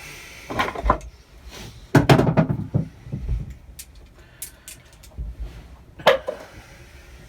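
Metal hand tools clattering and knocking as they are picked up and handled, with a sharp knock about six seconds in.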